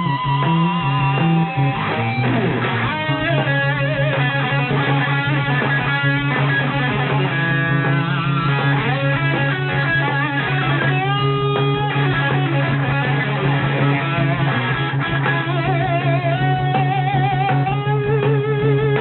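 Live rock band playing an instrumental passage: an electric guitar lead with bent, wavering notes over a steady held bass note.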